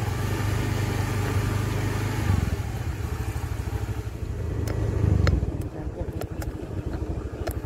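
Automatic scooter running steadily on a sandy dirt track, its engine mixed with a low wind rumble. About five seconds in, the sound changes to a faster pulsing with a few sharp clicks.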